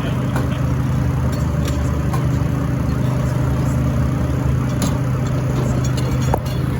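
Fire engine running steadily, an even low hum with no siren sounding. A short knock comes near the end.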